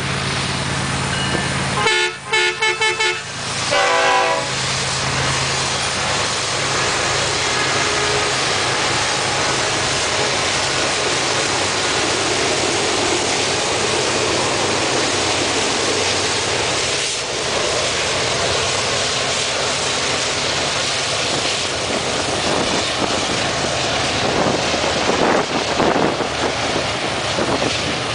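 A BNSF freight train's locomotive air horn sounds several short blasts and then a longer one about two seconds in. After that come the diesel locomotives and then the double-stack container cars, rolling past close by with a steady rumble of wheels on rail.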